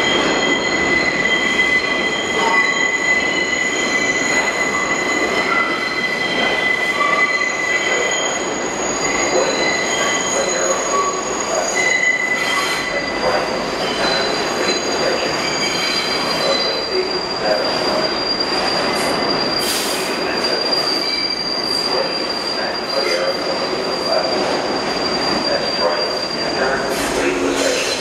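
R62-series subway train rolling into a sharply curved station, its wheels screeching against the rails over the running rumble. The squeal holds several high tones that shift pitch partway through and stops near the end as the train slows.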